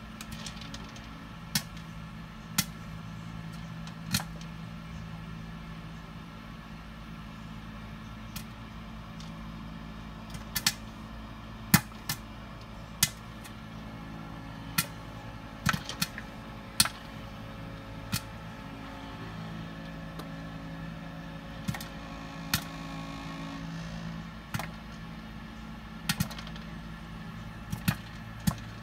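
Popcorn kernels popping in an electric stir-cooker under a clear plastic lid: scattered sharp pops, a few close together, over the cooker's steady running hum. Popping has only begun, with most kernels still unpopped.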